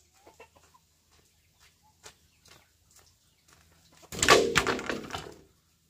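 A chicken calls loudly once, about four seconds in, lasting about a second and a half. Faint scattered clicks and small chirps come before it.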